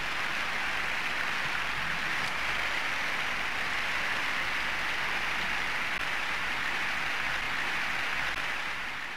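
Steady, even hiss like rain or static, with no voice or tune in it, starting to fade near the end.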